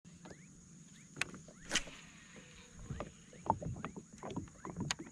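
Irregular clicks and knocks from a plastic fishing kayak and its gear being handled on calm water, a few of them louder. Over them run a steady high buzz and short rising chirps repeated a few times a second.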